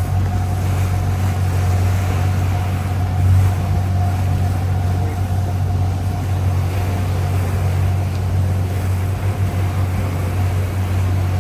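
Marine engine running with a steady low drone and a thin steady whine above it, with wind and water noise.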